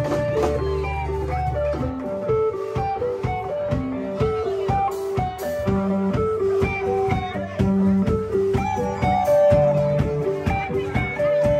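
Live rock band jamming, with electric guitars playing a bluesy run of quick single notes over drums. A low held bass note ends about two seconds in.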